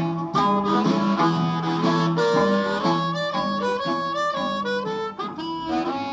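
Hohner Blues Harp diatonic harmonica in A, cupped against a Green Bullet microphone and played through a Boss Katana Mini amp, playing a blues line in quick, changing notes.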